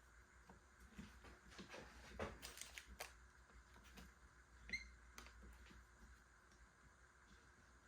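Near silence with a few faint clicks and light knocks of small clamps and wooden cauls being handled, and one brief squeak just before five seconds in.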